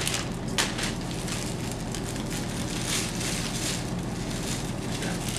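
Clear plastic poly bag crinkling and rustling as a sweatshirt is pulled out of it and shaken open, with a sharp crackle about half a second in.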